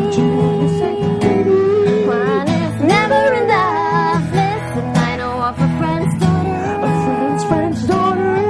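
A strummed acoustic guitar accompanies a woman singing, with long held vocal notes that bend in pitch.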